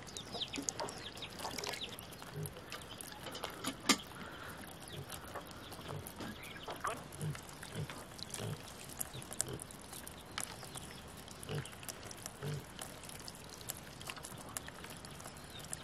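Wild mushrooms being rinsed by hand in a plastic basin of water and moved onto a steel plate: small splashes, wet handling and scattered clicks, with a sharper knock about four seconds in, over water trickling from a pipe. Short low grunts sound now and then in the background.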